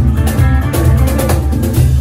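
Live blues band playing an instrumental passage: a hollow-body electric guitar picks melodic notes over a steady cajón beat, with a strong low end underneath.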